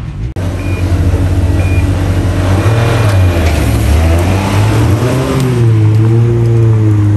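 Toyota GR Yaris rally car's turbocharged three-cylinder engine pulling hard along the stage, its note climbing and dropping several times as it shifts up through the gears.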